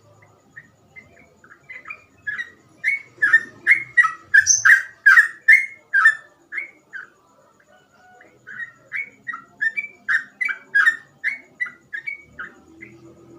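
Sooty-headed bulbul (trucukan) singing in a rapid run of short, clear whistled notes, about three a second, each slurring down. Two bouts with a brief pause between them; the first grows louder as it goes.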